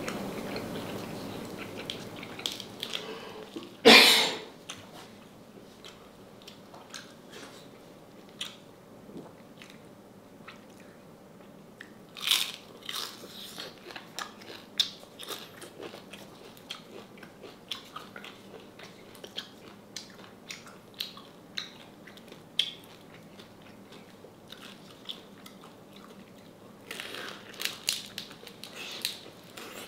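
A person biting and chewing crispy deep-fried salted pork knuckle, with irregular short crunches, and one much louder noise about four seconds in.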